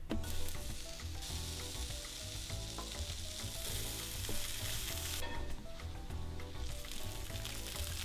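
Small pieces of Japanese A5 wagyu sizzling as they are laid with tongs into a hot cast-iron skillet to sear. The sizzle swells about a second in and eases off around five seconds.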